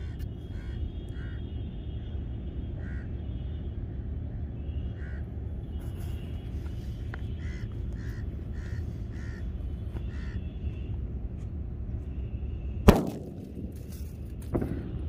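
A sutli bomb (string-bound firecracker) wrapped in aluminium foil explodes with one sharp, very loud bang near the end, with a smaller crack about a second and a half later. Before it, wind rumbles on the microphone and crows caw in short runs of calls.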